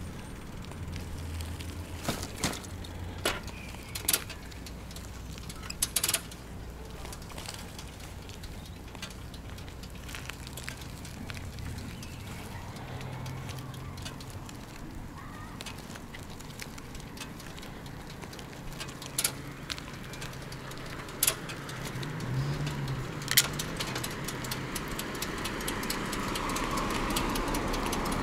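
Bicycle ride: a steady low rumble of tyres and wind, with a handful of sharp clicks and rattles scattered through. Motor traffic noise grows louder over the last few seconds.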